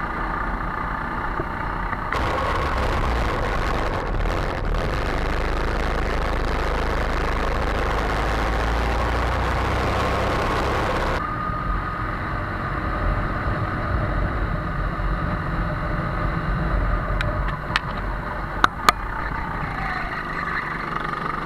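Go-kart engines running steadily. A loud rushing noise covers them for about nine seconds in the first half, and there are two sharp clicks near the end.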